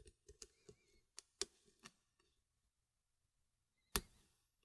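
Faint, scattered clicks and ticks of a hook pick working the spool and security pins in the Schlage cylinder of a Kryptonite padlock, under a tension wrench. A sharper click comes about a second and a half in, and a louder single click near the end.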